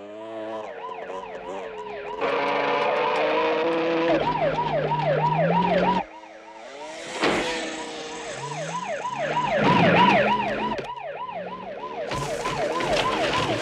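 Police car siren in a fast, repeating rising-and-falling yelp, about three or four cycles a second, with a vehicle engine revving up in steps underneath. There is a sharp knock about halfway through.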